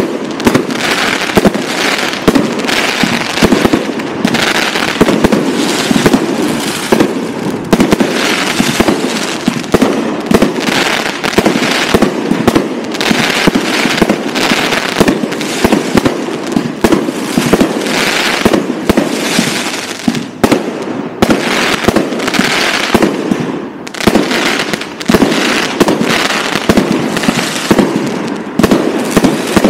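Aerial fireworks: multi-shot battery charges of 25–50 mm calibre launching and bursting in a rapid, nearly unbroken stream of bangs.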